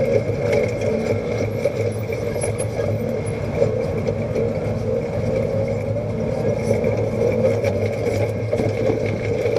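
Side-by-side UTV engine running steadily at low trail speed, heard from inside the open cab, with scattered light rattles and clicks.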